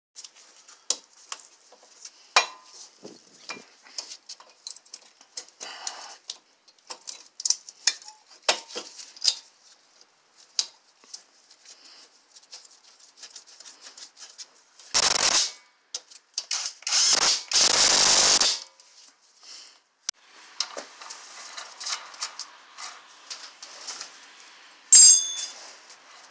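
Scattered clicks, clinks and knocks of metal parts and hand tools being handled while the front brake caliper and the axle nut are refitted. There are two longer, louder noisy bursts about halfway through and a sharp metallic ring near the end.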